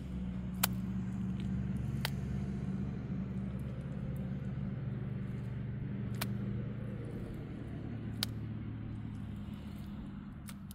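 A motor engine hums steadily at a low pitch, strongest at first and fading toward the end. A few sharp clicks are heard over it.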